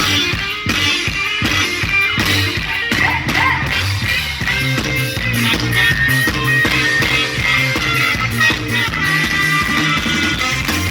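Loud amplified live band music from a sound truck's PA, with a steady beat and a bass line.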